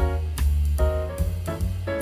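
Instrumental jazz-style background music with bass, drums and melody notes.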